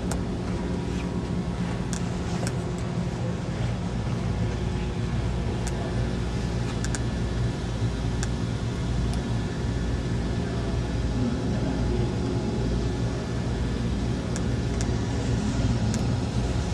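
Steady low rumbling background din with a constant hum and a few faint clicks.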